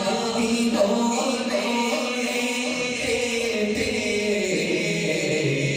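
A man's voice singing a long, drawn-out melodic line of an Urdu naat, unaccompanied, amplified through a PA system with an echo effect.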